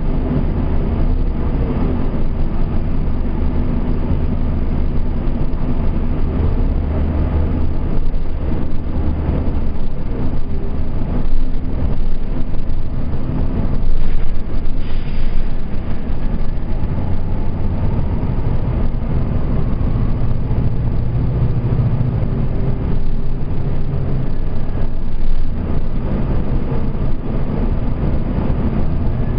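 Nova Bus RTS transit bus's diesel engine and drivetrain running as the bus drives, heard from inside the passenger cabin, the engine note rising and falling as it pulls away and slows in traffic.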